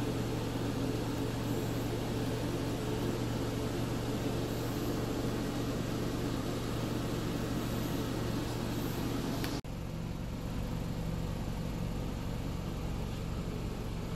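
A steady low mechanical hum with an even hiss. It changes abruptly about two-thirds of the way through, then carries on in a slightly different tone.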